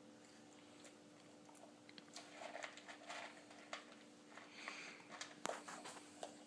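Faint handling noises: soft rustles and small clicks of plastic cups and a bottle being moved about, with one sharper click about five and a half seconds in.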